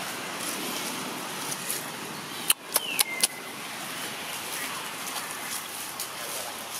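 Steady outdoor background noise. About two and a half seconds in come four sharp clicks in quick succession, about four a second, with a short falling squeak among them.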